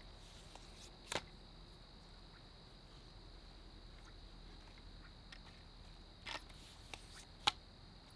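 A handful of sharp clicks and clacks from a camera tripod being lifted and its legs set, one about a second in and a cluster near the end, the last the loudest. Underneath is a faint steady high-pitched tone.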